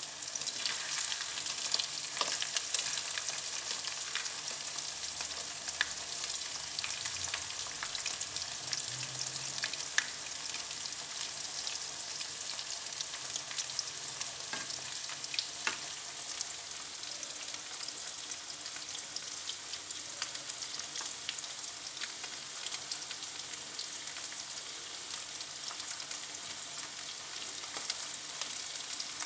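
Flour-coated shrimp frying in hot oil in a pan, a steady sizzle dotted with fine crackling and a few sharper pops or clicks as the pieces are turned with wooden chopsticks.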